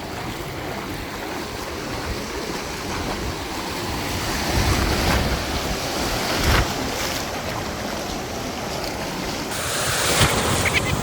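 Ocean surf washing and breaking close by, with wind buffeting the phone's microphone; the surge swells louder a few times.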